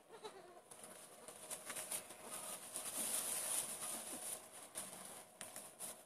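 Close rustling and scuffing with scattered small clicks, as goat kids nuzzle and mouth at the phone and shift in the straw. It grows loudest about two to four seconds in.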